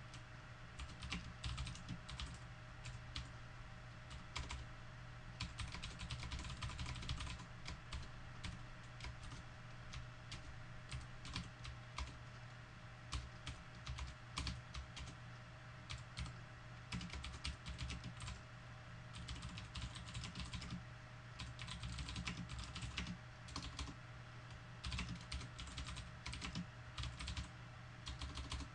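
Typing on a computer keyboard: runs of quick key clicks broken by short pauses, over a steady low hum.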